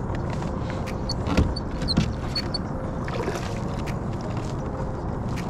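Water sloshing against a fishing kayak with steady wind noise, light clicks scattered throughout, and two sharp knocks about a second and a half and two seconds in.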